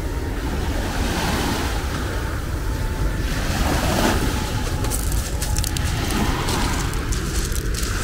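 Small sea waves breaking and washing on a pebble beach, with wind buffeting the microphone as a steady low rumble. The wash swells about halfway through, and a crisp clicking rattle of pebbles comes in over the last few seconds.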